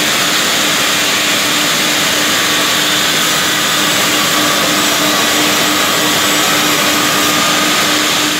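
Vertical band sawmill for round logs running: a loud, steady machine noise with a constant hum.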